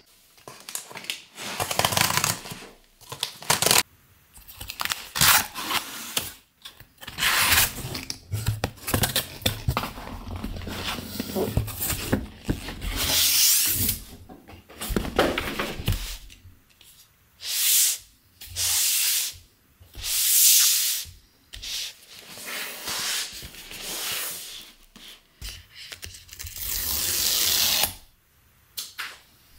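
Close-up handling of an Apple MacBook Pro's white cardboard retail box: hands rub, slide and turn it, making a series of separate swishing, scraping strokes with short pauses between them.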